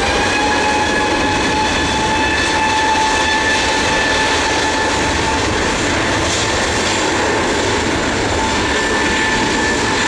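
Airbus A320neo's CFM LEAP-1A turbofan engines running at high power on departure: a loud, steady rushing noise with several high whining tones that hold their pitch.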